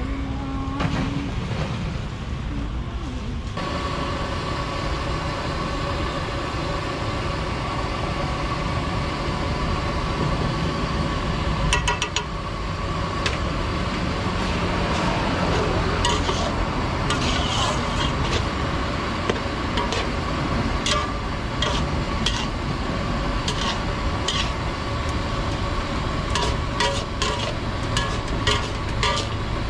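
Busy eatery ambience: a steady hum sets in a few seconds in, and from about twelve seconds in there are scattered clinks of dishes and cutlery.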